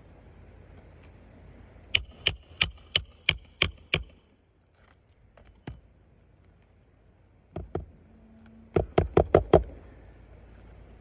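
Hammer driving roofing nails into asphalt shingles: a run of about seven sharp strikes with a metallic ring, two lighter taps, then a quick burst of about six strikes.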